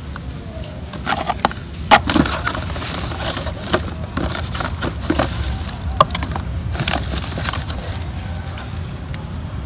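Cardboard phone packaging being handled by hand: a string of sharp taps, clicks and short scraping rustles as the box and its inner tray are moved and opened, over a steady low rumble.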